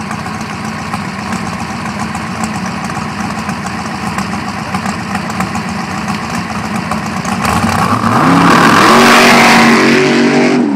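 Big-block Chevrolet V8 of a dragster idling with a steady rumble, then about seven seconds in it revs and the car launches, the engine running at full throttle with its pitch climbing as it pulls away down the strip.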